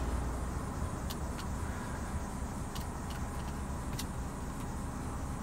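Steady low rumble of the truck's Paccar 460 bhp Euro 6 diesel idling, heard from inside the cab, with a few light clicks scattered through it.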